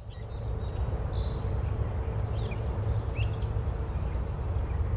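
Outdoor nature ambience: birds chirping and calling in short high notes over a steady low rumble and hiss.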